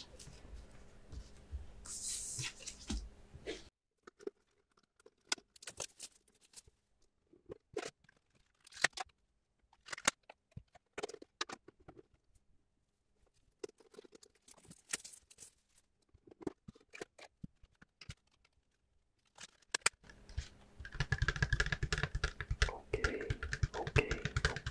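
Gloved hands handling Pokémon card tins and card packaging: scattered light taps, clicks and scratches with quiet gaps between them, turning into busier rustling in the last few seconds.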